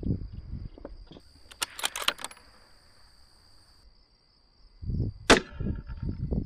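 A single rifle shot about five seconds in: one sharp, loud crack, the loudest thing here. It is preceded about two seconds in by a quick cluster of sharp clicks, with wind rumbling low on the microphone.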